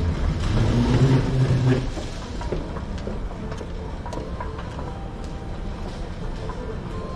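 Busy shop-floor ambience: a louder low rumble for about the first two seconds, then a steady background hum with scattered small clicks and knocks.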